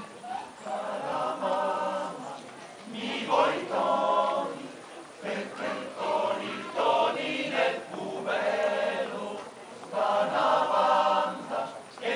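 Male-voice choir singing a cappella in several parts, held chords in phrases of a second or two with short breaks between them.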